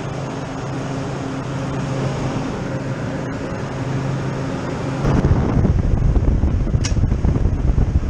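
Walk-in freezer evaporator fan with an AC motor running, a steady hum. About five seconds in, a louder, rough low rushing takes over, and there is one short sharp click near the end.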